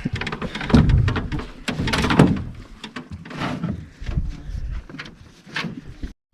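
Irregular wooden knocks, bumps and scrapes on a homemade boat as it is handled and boarded, ending in an abrupt cut near the end.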